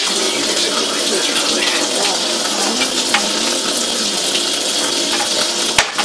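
Tap water running steadily. Near the end there is one sharp knock as a knife chops down on the cutting board.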